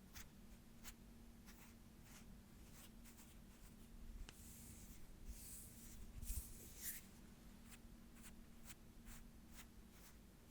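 Faint ASMR hand sounds close to the microphone: a run of small, quick brushing strokes, about two or three a second, with a denser, slightly louder rustling rub from about four to seven seconds in. A faint steady hum sits underneath.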